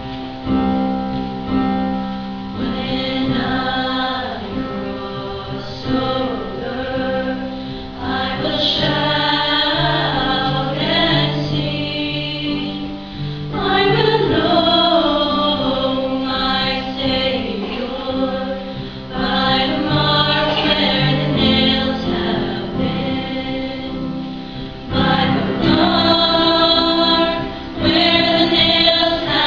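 High school choir singing a hymn, several voices in harmony, swelling louder about a third of the way in, around the middle, and again near the end.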